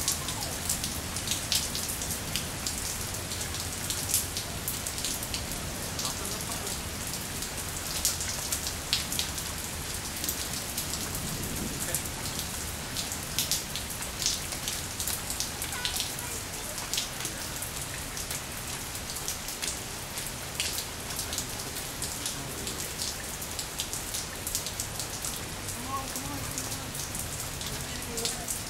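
Steady rain falling on wet pavement, an even hiss with frequent sharp individual drop hits close by.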